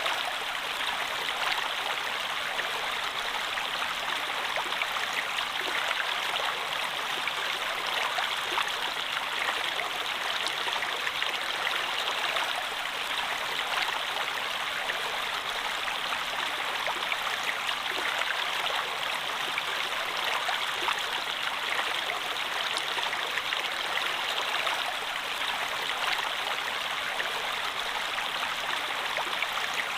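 Flowing water of a stream running over rocks: a steady rushing with fine splashing and trickling, unchanging throughout.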